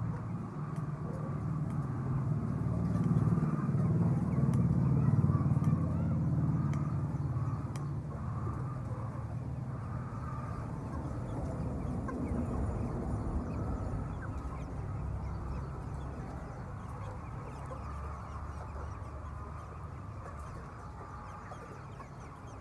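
Chickens clucking over a steady low rumble that grows louder a few seconds in, then eases off.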